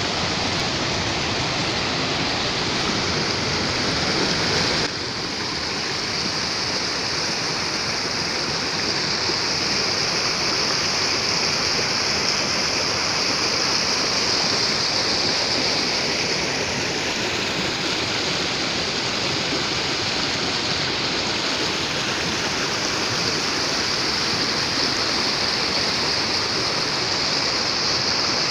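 A creek in flood after heavy rain, brown water rushing hard and steadily over a rocky gravel bed.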